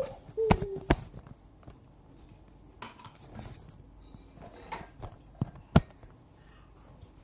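A baby vocalising with a held "aah" for the first second, then scattered light knocks and clicks, the sharpest near the end.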